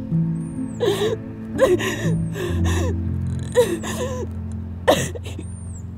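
A woman sobbing: about five gasping, whimpering breaths over soft, sustained low music notes.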